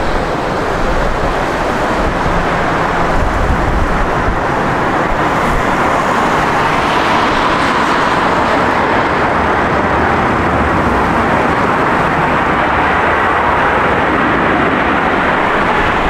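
Jet airliner engines running close by, a loud, steady rushing noise with a faint high whine that builds after about six seconds and holds.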